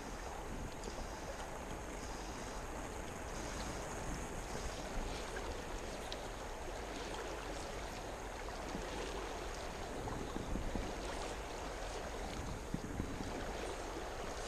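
Steady rush of flowing river water, with a few faint clicks over it.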